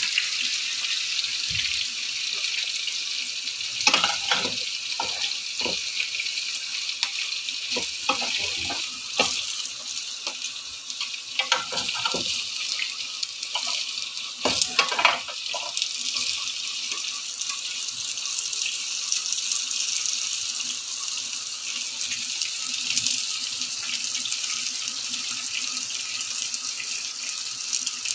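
Hot oil sizzling steadily in frying pans with breaded pieces and french fries frying. Short knocks of pans and utensils being handled come through the first half.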